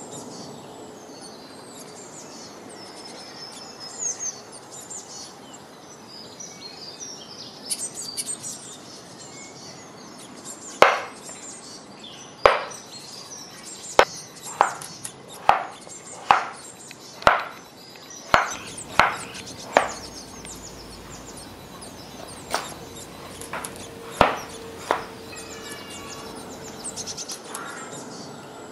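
Kitchen knife cutting through a peeled raw potato onto a wooden chopping board: a string of sharp knocks about a second apart, then three more a little later. Birds chirp in the background.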